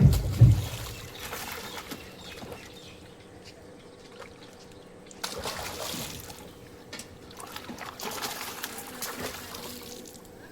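Water splashing and trickling in bursts, with two heavy low thumps right at the start.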